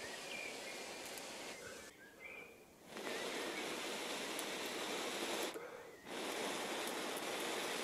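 Three long breaths blown onto a smouldering ember in a piece of tinder, each a steady hiss of air with short pauses between. The blowing is coaxing the ember to spread and glow. Faint bird chirps in the background.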